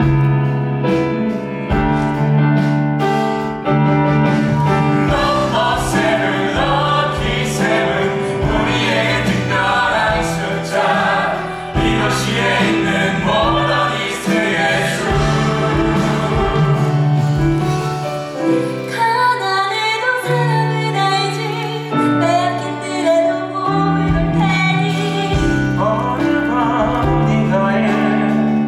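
Musical theatre cast singing an encore number together over instrumental accompaniment. The voices come in a few seconds in, over held chords.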